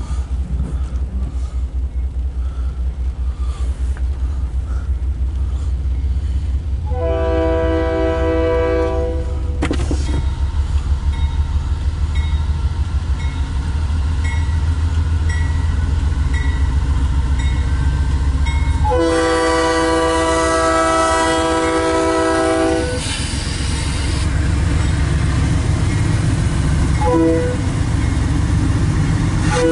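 Approaching CSX diesel locomotive's multi-note air horn, which the railfan identifies as a Nathan Airchime RS-3K, sounding the grade-crossing signal: a long blast, a longer one, a short toot, and the start of a final long blast near the end. A low rumble runs underneath, with faint dinging between the blasts.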